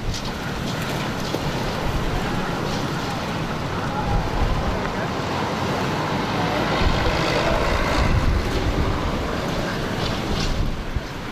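Storm-force wind blowing hard, a steady rush of noise with heavy buffeting rumble on the microphone.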